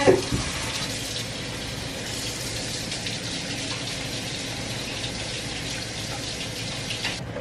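Kitchen sink tap running steadily while hands are washed under the stream, cutting off suddenly near the end.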